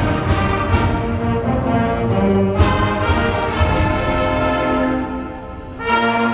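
Middle school concert band playing a Christmas medley, with brass prominent in sustained chords. The sound thins out briefly near the end, then the full band comes back in.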